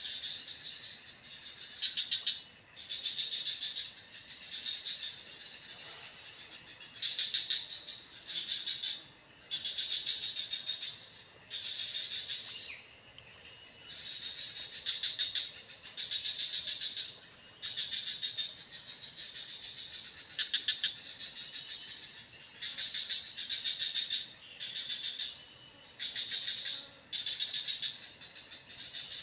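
Insect chorus: a steady high-pitched drone with short pulsing trills that come and go every second or two.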